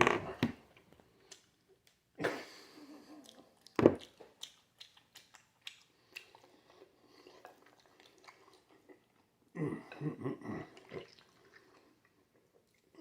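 A man chewing a mouthful of raw steak with wet mouth smacks and clicks, then a short muffled vocal sound from the chewing mouth about ten seconds in.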